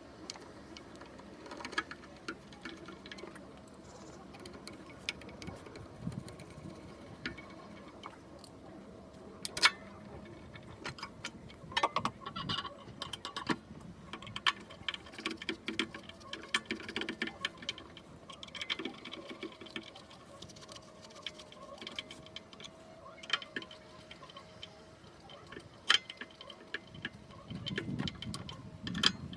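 Scattered, irregular clicks and taps of tools and small parts being handled during work on a cut-off saw's brush motor.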